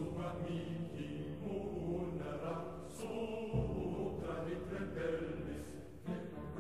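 Background music of chant-like singing with held notes over a low drone, the phrases changing every few seconds.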